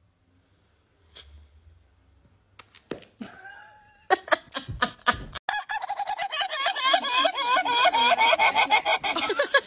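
A rooster calling in a long, fast string of clucks, several a second, in an even rhythm. The calls begin about four seconds in after a near-quiet start.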